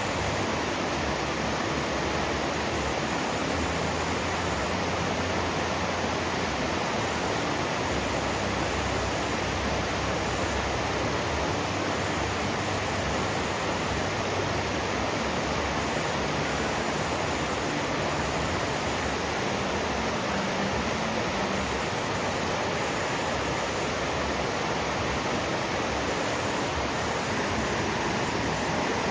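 River water rushing, a steady, even noise that does not change.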